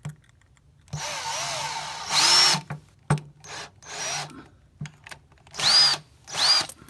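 Cordless power drill run in several short bursts, the first the longest, its motor whining up and winding down with each trigger pull, boring a stuck rubber pin remnant out of its hole in a wooden instrument frame.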